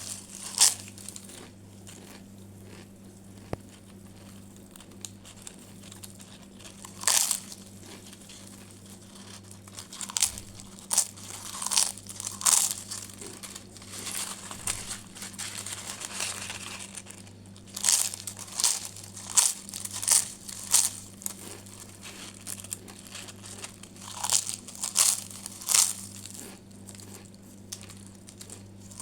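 Crusty bread being torn and chewed: irregular clusters of short crunching and crackling bursts with quiet gaps between them.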